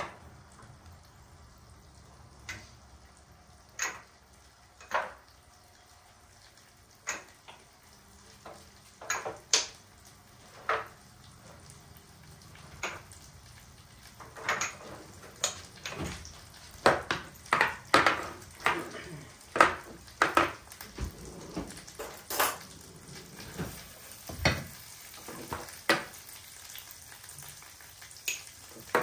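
Butter and tomato paste frying in a pan with a low sizzle, under irregular sharp clicks and clinks of kitchenware. The clicks come thicker in the second half.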